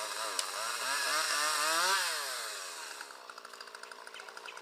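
Chainsaw revved up, its pitch wavering and climbing for about two seconds, then falling back to a steady idle about three seconds in.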